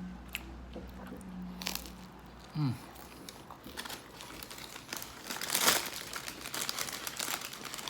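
Paper food wrapping crinkling and crackling in irregular bursts as the food is handled, getting busier in the second half and loudest a little past the middle.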